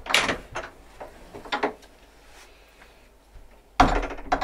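Black iron latch on a wooden plank door clicking and rattling as it is worked, with a few small clicks. A louder knock comes near the end as the door swings open.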